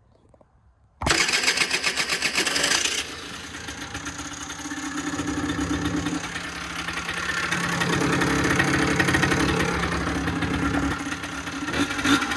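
Rieju RS2 Matrix 50cc two-stroke engine starting from completely cold with the choke on. It fires about a second in and runs loudly for about two seconds, then settles into a steady idle that swells a little midway. The bike starts readily, showing the starting fault, put down to the old spark plug, is cured.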